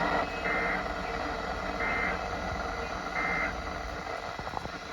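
Emergency Alert System end-of-message signal from NOAA Weather Radio: three short, buzzy digital data bursts about 1.3 seconds apart, heard over steady radio hiss. The bursts mark the end of the tornado watch broadcast.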